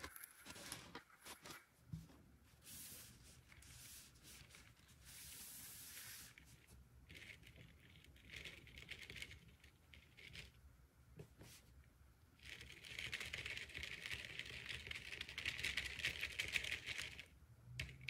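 Hands handling a small plastic toy and its accessories: scattered light taps, clicks and rustles, then a few seconds of denser crinkling and rustling in the second half.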